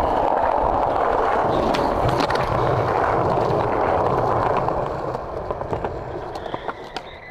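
Skateboard wheels rolling over smooth concrete, a steady rolling noise that drops off about five seconds in, followed by a few sharp clicks.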